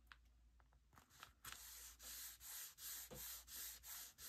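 Fingers rubbing back and forth over paper, smoothing a paper piece flat on a journal page: faint, even swishes about three a second, starting about a second and a half in after a few light paper ticks.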